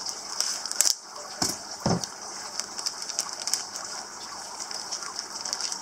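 Thin plastic bag crinkling and rustling as it is cut open with a knife and pulled apart by hand, with two short low thuds about one and a half and two seconds in.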